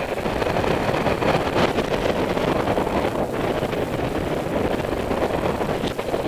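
Steady rush of airflow buffeting the microphone of a camera carried on a paraglider in flight, driven by the glider's airspeed.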